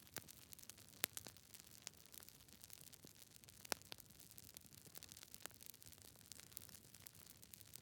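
Wood fire crackling: irregular sharp pops and snaps over a soft low hiss, with the loudest pops about a second in and just before the middle.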